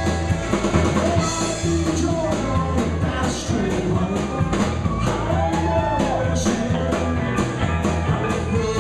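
Live country band playing a song with a steady beat: a man singing over acoustic guitar, electric bass and drum kit.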